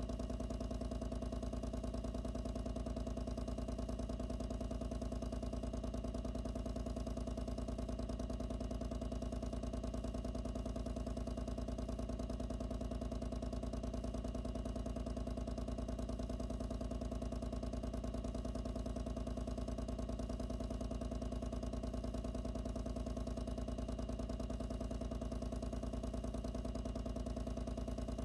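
Loud pump driving the water flow through the ink tube, running steadily and heard from very close inside its enclosure: a constant low hum with a fast, even buzz.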